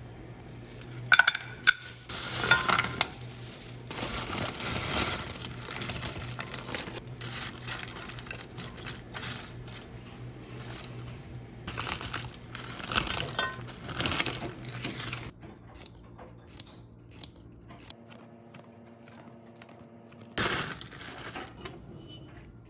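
Kitchen handling sounds: dishes and utensils clinking and clattering, with packaging crinkling, over a steady low hum.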